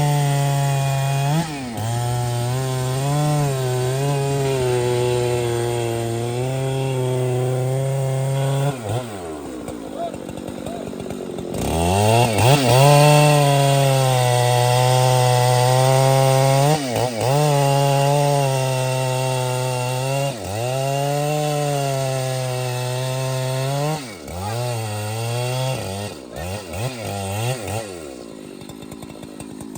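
Large two-stroke chainsaw cutting trembesi wood, its engine note sagging and recovering as the chain bites. About nine seconds in it drops back toward idle for a couple of seconds, then revs up and cuts again; near the end it is blipped a few times and eases off.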